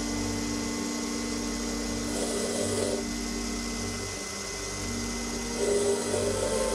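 Proxxon PD 250/e mini lathe running, its tool cutting a chromoly steel part while the compound slide is fed by hand.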